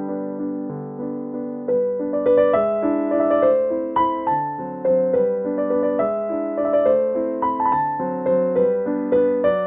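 Background piano music: a gentle melody over held chords, growing louder and busier about two seconds in.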